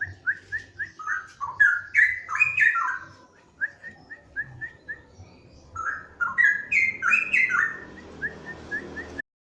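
Straw-headed bulbul (cucak rowo) singing: phrases of quick, rising whistled notes, separated by short pauses.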